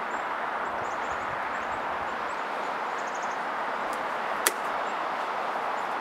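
Steady outdoor background noise, with faint high chirps and a single sharp click about four and a half seconds in.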